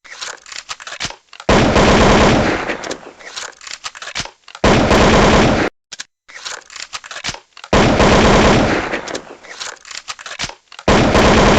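AK-47 rifle firing four full-auto bursts, each about a second long and about three seconds apart, with quieter scattered cracks between the bursts.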